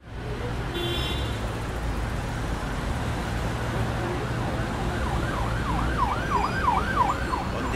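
Steady low traffic rumble, joined about five seconds in by an emergency vehicle siren wailing quickly up and down, several cycles a second.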